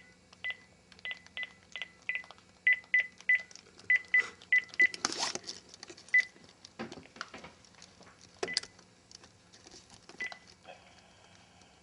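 Phone keypad tones as a phone number is dialed: a dozen or so short beeps of the same pitch, one per key press, at an uneven pace over the first half. A brief rustle and a few clicks follow.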